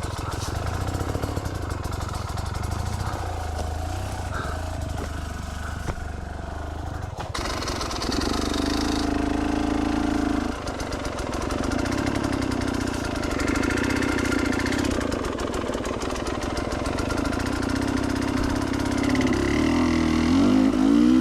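Enduro dirt bike engine running under load on a trail, its sound rising and falling with the throttle, with the revs climbing sharply near the end.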